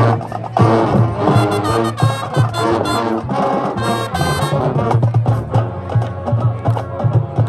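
Marching band playing, with the brass section carrying the tune over steady drums.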